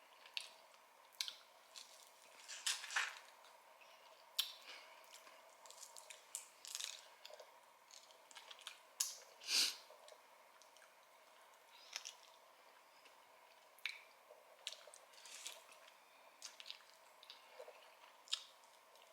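Close-up eating sounds: a person chewing and biting into crispy fried chicken, with irregular short wet crackles and smacks, the loudest about nine and a half seconds in.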